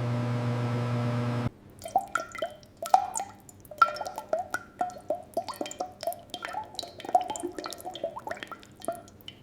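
A steady machine hum cuts off about a second and a half in, followed by liquid dripping: irregular drops plopping, several a second, each with a short ringing pitch.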